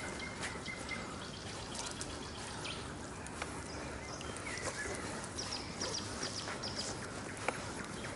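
Steady wash of water around a small boat moving across a lake, with a few light knocks and birds calling: a brief call near the start and a quick run of high chirps a little past the middle.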